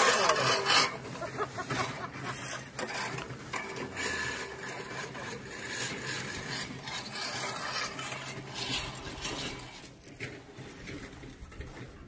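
Manual push reel lawn mower being pushed over grass, its spinning blades rasping and clattering as they cut. Loudest in the first second, then steadier and uneven.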